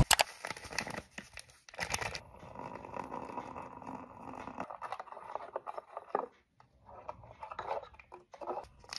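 A sachet of instant cappuccino powder crinkling and rattling as it is emptied into a glass mug, with scattered clicks, then water being poured into the mug from a plastic jug.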